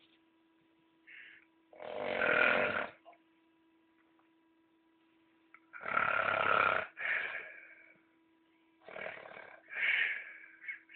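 A man snoring loudly in heavy, rough breaths. Long snores come about two seconds in and again about six seconds in, followed by shorter snores near the end.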